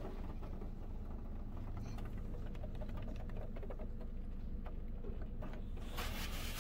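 Hydrospray Rainmaker car wash applying triple foam, heard from inside the car: a steady low machine hum with faint scattered ticks and patter on the glass. A spray hiss starts to rise near the end.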